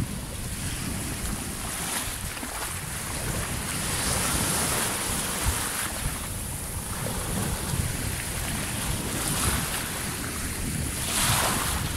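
Small waves washing up over sand in shallow surf, the hiss swelling and easing with each wash, with the strongest surge near the end. Wind buffets the microphone throughout.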